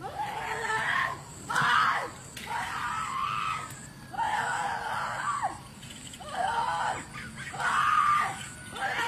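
Human screaming: about seven high-pitched screams in a row, each lasting roughly a second, with short breaths between them.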